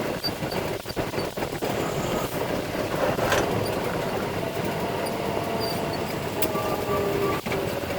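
Concrete mixer truck running steadily, its engine and drivetrain noise constant, with a faint whine coming in near the end.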